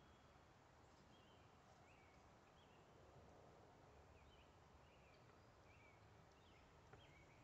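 Near silence, with faint birds chirping in short notes about once or twice a second and a faint click near the end.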